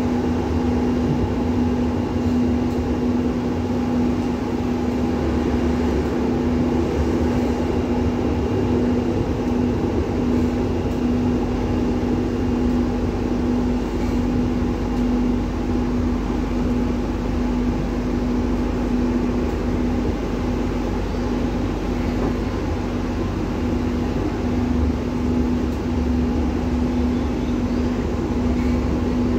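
Steady running noise inside a moving Palembang LRT car: an even rumble with a constant hum over it.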